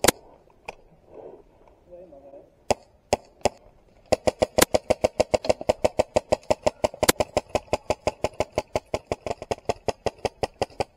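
Airsoft gun fire: a few single shots, then from about four seconds in a long steady stream of sharp shots at about seven a second.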